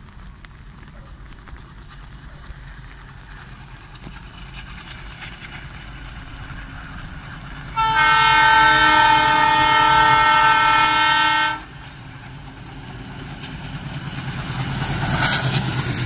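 WDM-3A diesel locomotive approaching with a growing engine rumble, then sounding its horn in one long blast of about four seconds that cuts off sharply. The rumble swells again near the end as the locomotive and its coaches pass close by.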